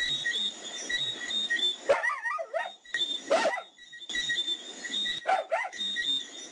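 Dogs barking and yelping several times over a high chirp repeating at a steady pace in the background: a night-time soundscape sound effect.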